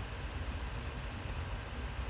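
Steady low rumble with a light hiss: background room noise with no distinct events.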